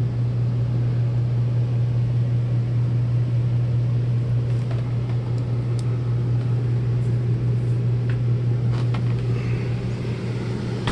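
Steady low mechanical hum from the motorhome's running equipment, with a few faint light clicks about midway.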